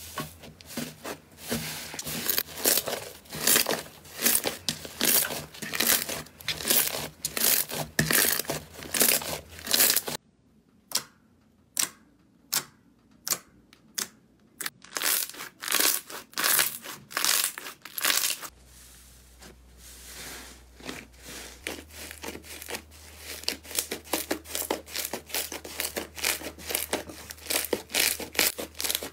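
Hands squishing and stretching slime, several slimes in turn. At first it is dense crackling and crunching. About ten seconds in this gives way to separate sharp clicks and pops as holes in a glossy slime are pulled open. Near the end a soft, fluffy slime gives a softer crackle that thickens again.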